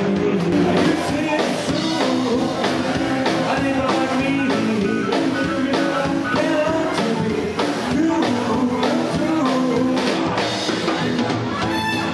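Live eight-piece swing band playing, with a drum kit beating time under sustained horn lines.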